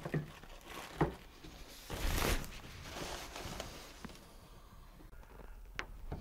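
Plastic bags and foam packing wrap rustling and crinkling as they are handled on a tabletop, with a short knock about a second in and the loudest crinkle about two seconds in.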